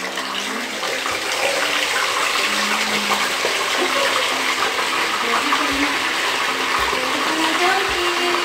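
Whole tilapia frying in hot oil in a pan: a loud, steady sizzle.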